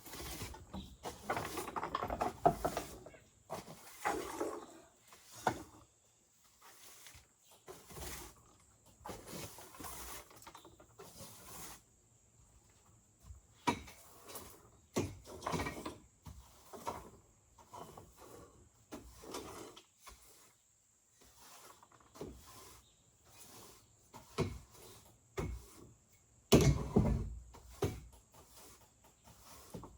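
Irregular knocks, clicks and rattles of a broken jigsaw being handled and turned over, with quiet gaps between, and one heavier thump near the end.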